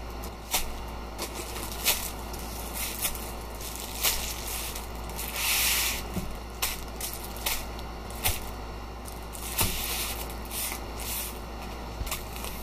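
Paper sandwich wrappers rustling and crinkling, with soft knocks as wrapped burgers are set down one after another on a wooden board. There is a longer crinkle about five and a half seconds in and another near ten seconds.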